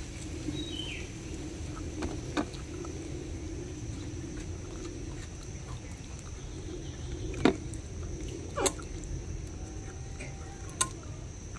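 Fingers mixing water-soaked rice (panta bhat) and banana in a steel bowl, with chewing, soft wet sounds and a few sharp clicks against the bowl.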